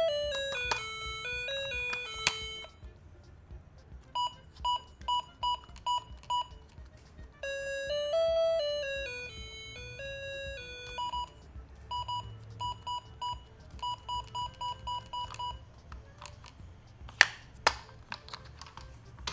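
Handheld LCD brick-game toy shaped like Lightning McQueen playing its electronic beeping sounds: a simple stepping tune at the start and again in the middle, with runs of short identical beeps between them. Two sharp plastic clicks near the end are the loudest sounds.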